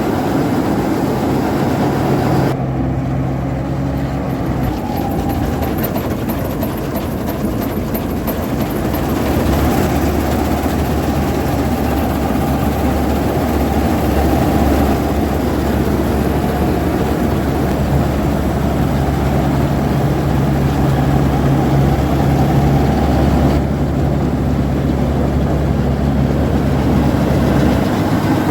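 Combine harvester running: a steady, heavy engine drone with a dense mechanical rattle over it. The sound changes abruptly twice, about two and a half seconds in and again near the end.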